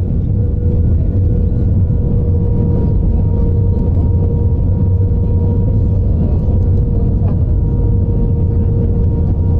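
Steady low engine rumble of a moving vehicle, with a constant droning hum over it.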